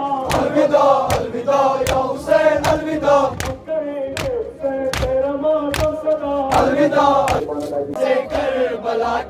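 Shia mourners chanting a lament for Husayn in unison, with a steady rhythm of hand slaps on their chests (matam), about one and a half to two beats a second.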